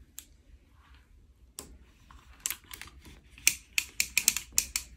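Quick, irregular clicks and taps from hands working a tape measure along a plastic-covered diamond painting canvas, sparse at first and coming thick and fast in the second half.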